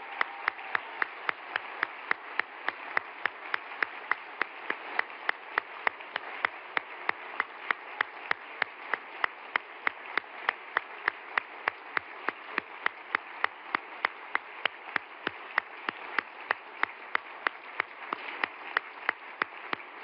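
Audience applauding, with one person's loud, steady handclaps close to the microphone, about three a second.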